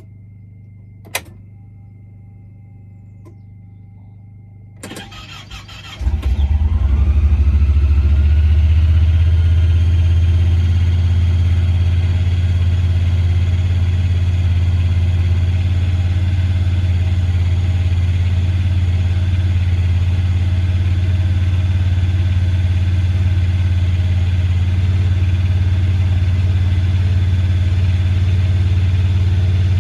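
Honda Pioneer 1000 side-by-side engine cranked by its starter about five seconds in. It catches a second later and climbs to a steady, fast idle, the high idle that goes with a fault in the idle air control circuit (here broken, over-crimped wires at the IACV plug). Before the start there is a single click and a faint steady tone.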